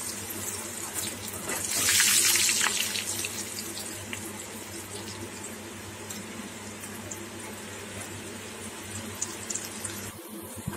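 Bitter gourd slices deep-frying in hot oil in a kadai: a steady bubbling sizzle that swells about two seconds in, then settles to a lower, even hiss with small crackles.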